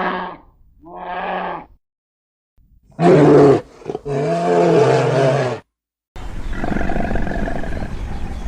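Calls of a large wild animal in separate clips: a short pitched call at the start and another about a second in, then two loud, longer calls about three to five seconds in. From about six seconds a steady outdoor noise takes over.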